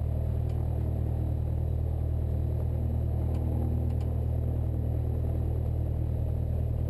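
Cessna 172's piston engine and propeller running steadily at low power, heard inside the cabin, before the takeoff roll.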